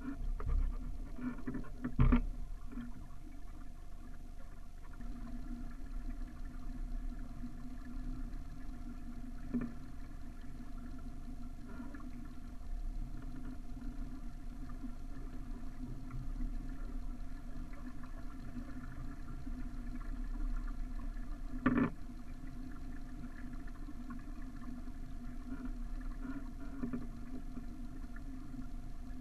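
Water washing steadily along the hull of a small sailboat under sail, broken by a few sharp knocks from the boat, the loudest about two seconds in and another about two-thirds of the way through.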